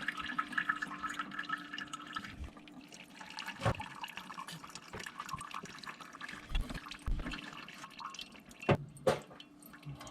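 Water left in the lines dripping and trickling from a freshly cut copper supply pipe into a cup, with a few sharper drops or knocks.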